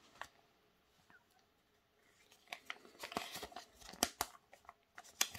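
Folded paper instruction leaflet being handled and unfolded: near-quiet at first, then from about two seconds in a run of sharp, irregular paper crackles and crinkles.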